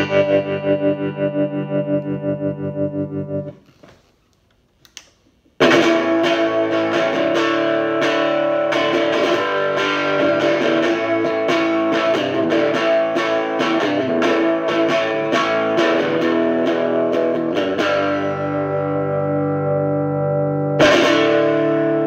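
Electric guitar played through a 1960s silverface Fender Vibro Champ, a small single-6V6 tube amp. It opens on a held chord pulsing evenly with the amp's vibrato (tremolo) effect. That chord is cut off about three and a half seconds in, and after a two-second pause comes a busy passage of picked and strummed notes, ending on held chords.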